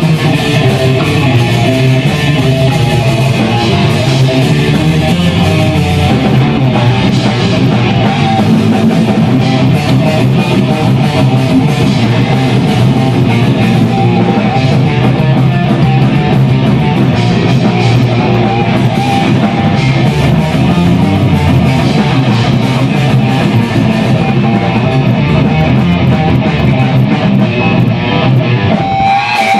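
Loud rock music with distorted electric guitar and a drum kit.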